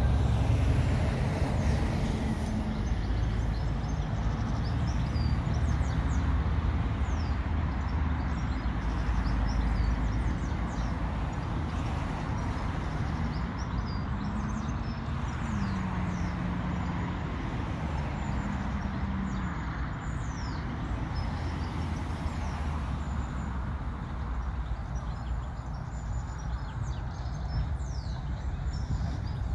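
British Rail Class 08 diesel shunter's English Electric six-cylinder engine running with a low rumble as the locomotive moves slowly along the line; its note rises and then steps down about halfway through. Birds chirp throughout.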